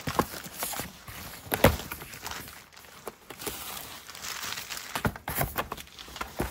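A cat clawing and tearing at paper and cardboard: irregular rustling and scratching, with a few sharper knocks about a second and a half in and again around five seconds in.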